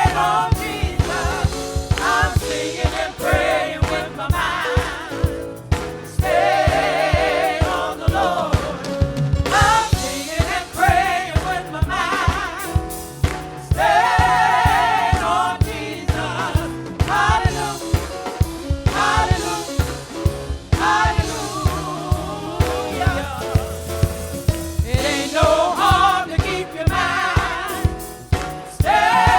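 Gospel choir singing with a band, in sustained vibrato phrases over a steady drum beat.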